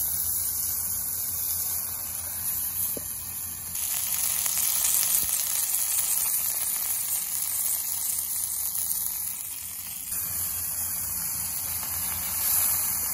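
Gar fillets sizzling steadily as they fry in oil and honey in a small steel pan over an open wood fire. The sizzle shifts abruptly in level about four and ten seconds in.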